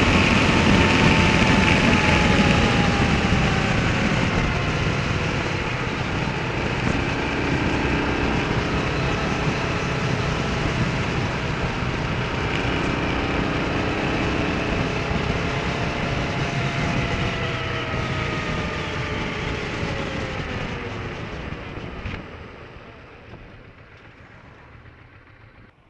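Motorcycle riding at road speed: engine running with wind rush over the microphone, its note slowly rising and falling with the throttle. About 22 s in it drops away sharply as the bike slows right down.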